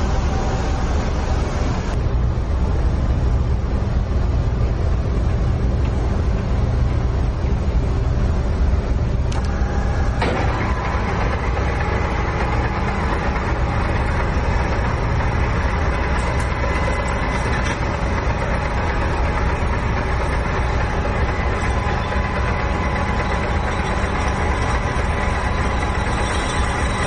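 Geared-head universal lathe running, its chuck spinning a large disc workpiece, over the steady low drone of a ship's engine room. The sound grows brighter, with faint steady whines, about ten seconds in.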